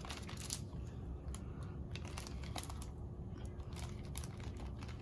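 Packaging crinkling and rustling in irregular short crackles as hands dig through a box of wrapped toys.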